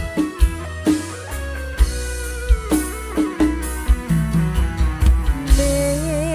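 Live band playing an instrumental intro. An electric guitar picks a lead melody with bent notes over regular drum hits, and a held, wavering melody line comes in near the end.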